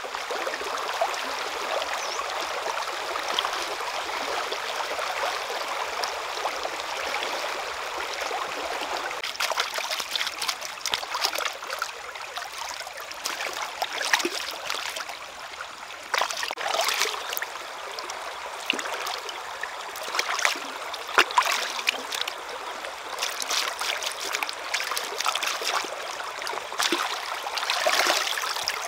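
Stream water flowing steadily. From about nine seconds in, irregular splashing and pouring as a rack of raw beef ribs is rinsed and swished in the shallow stream.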